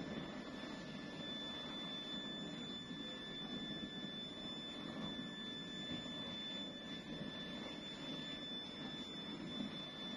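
Steady rushing noise of a gas torch lance burning inside a brake-drum sand mould to dry its coating, with a faint high steady whine.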